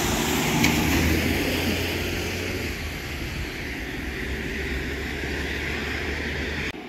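Street traffic on a wet road: a car passing with tyres hissing on the wet asphalt over a low engine hum, loudest about a second in and then slowly fading. The sound cuts off abruptly just before the end.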